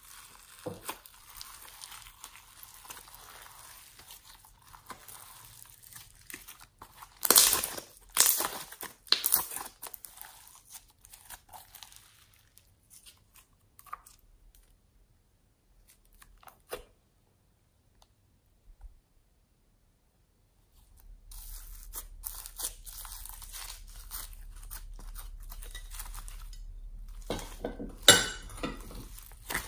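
Slime being squeezed, stretched and pulled apart by hand: wet squishing and crackling, with a cluster of louder squelches about a quarter of the way in and a sharp squelch near the end. Past the middle it goes nearly silent for a few seconds, then the squishing returns over a faint steady low hum.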